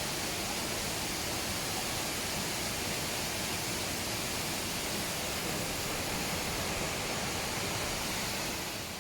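Steady, even rushing of falling water, fading away at the very end.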